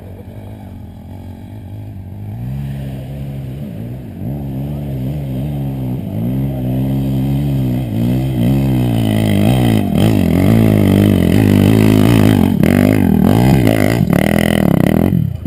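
Off-road motorcycle climbing a hillside toward the listener, its engine revving up and down with the throttle and growing steadily louder as it nears, then dropping off sharply just before the end.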